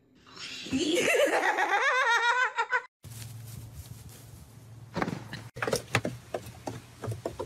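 A person laughing hard for about two and a half seconds, cut off suddenly. Then a steady low hum with scattered knocks and clicks.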